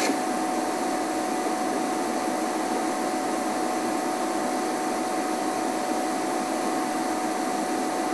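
Steady, even hiss with a faint constant tone running through it, unchanging and without distinct events.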